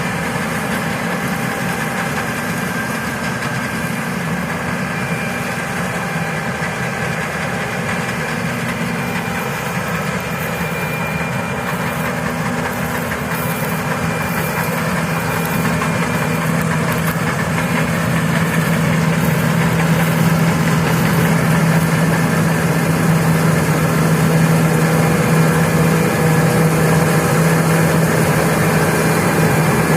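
Engine of harvest machinery running steadily with a constant low hum, getting a little louder about halfway through.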